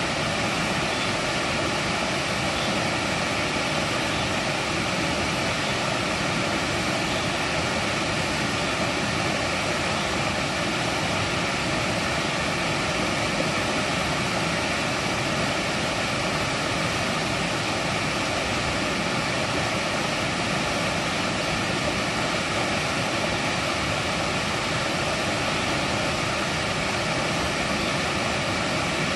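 Mountain stream water rushing steadily over rocks in a valley, an even, unbroken flow.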